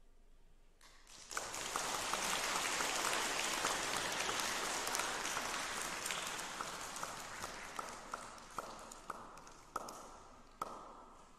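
Audience applauding: the clapping breaks out about a second in, holds steady, then thins to a few scattered claps near the end.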